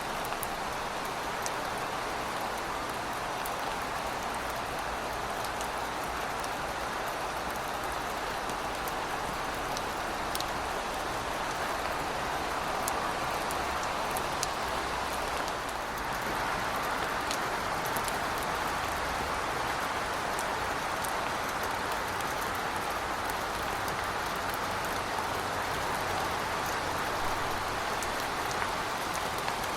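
Heavy rain falling steadily and pattering on hard surfaces, with scattered sharp drip ticks and a faint low rumble underneath.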